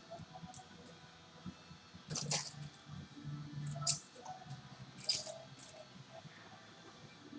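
Scattered light metallic clinks and handling noises of tools and engine parts being worked on, a few sharp clinks standing out, over a faint low hum.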